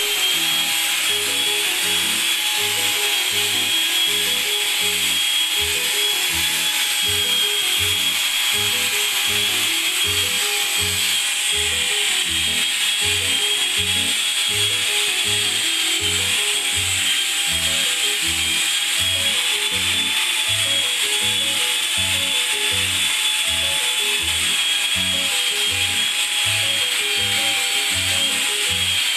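Long-reach drywall sander with a dust-extraction hose, running steadily against a plaster wall: a constant high motor whine over a hiss. Background music with a steady beat plays underneath.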